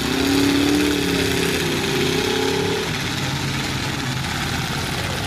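Engines of full-size demolition derby pickup trucks running in the arena. One engine note rises and falls over the first three seconds, over a steady rumble of engines.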